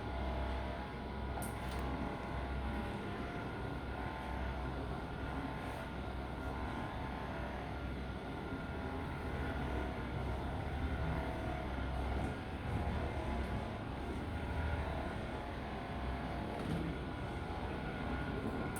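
Electric mobilization massage device running with a steady motor hum.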